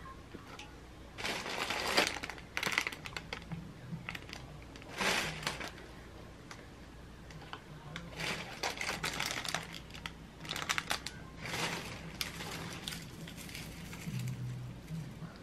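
Plastic food packaging and plastic bags crinkling and rustling in irregular bursts as packs are picked up and handled.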